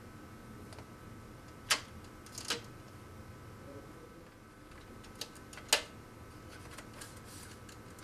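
Data cables being clipped one by one into the slots of a patch panel's cable form-up guide. There are a few sharp clicks, the loudest about two seconds and six seconds in.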